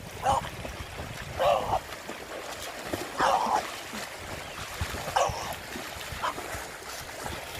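A French bulldog barking in short, separate bursts, about five times, alarmed at a person splashing in the water as if he were drowning.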